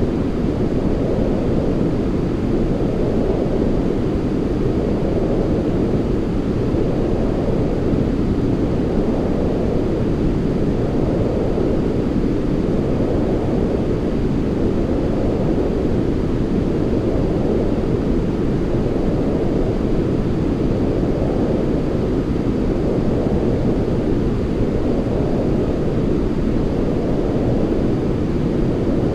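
Continuous white-noise sleep track: a steady, deep, muffled rush of noise that eases and swells gently about every four seconds.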